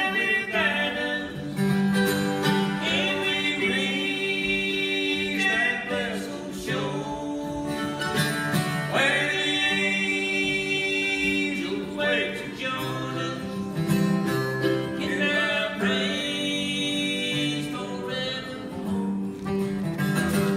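Live bluegrass gospel song: acoustic guitar strumming and mandolin with male singing.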